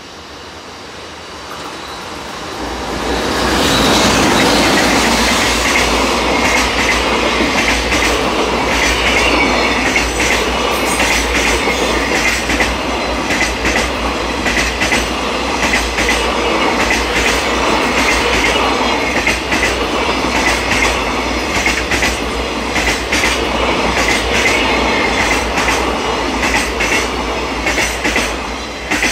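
JR Freight EH500 electric locomotive passing at speed with a long container freight train. The wheels clatter rhythmically over rail joints as the wagons go by. The sound swells over the first few seconds as the locomotive arrives, and it falls away sharply near the end as the last wagon clears.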